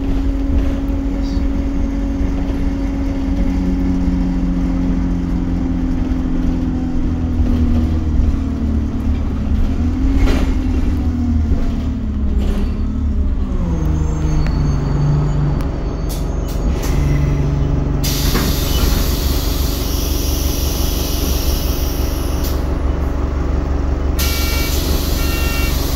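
Alexander Dennis Enviro200 bus heard from inside the saloon: the engine hum falls in pitch as the bus slows to a stop, then settles at a lower idle. About two-thirds through a hiss of air starts, as the air brake and doors are worked, and near the end an electronic warning beeps in short, evenly spaced pips.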